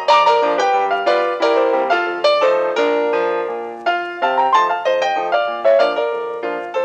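Background piano music: a steady run of struck notes with chords underneath.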